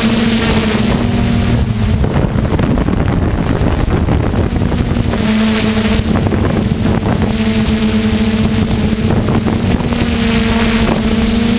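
DJI F550 hexacopter's electric motors and propellers humming steadily, heard from its onboard camera, with wind rushing over the microphone. A couple of seconds in, the wind noise swamps the hum for a few seconds before the hum comes back.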